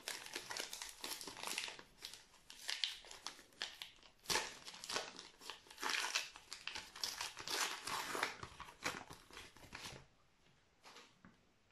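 Plastic wrapper of a Match Attax trading-card pack being crinkled and torn open by hand, crackling irregularly, then stopping near the end as the cards come out.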